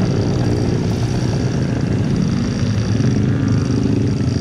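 Many motorcycle engines running as a steady stream of motorbikes rides past, their engine notes overlapping in a continuous mix, with a steady high-pitched tone over it.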